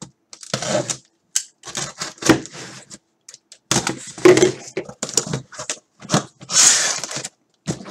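A box cutter slicing the tape on a cardboard shipping case, and the case's cardboard flaps being pulled open and handled: a run of irregular scrapes, rips and knocks, with one longer tearing scrape near the end.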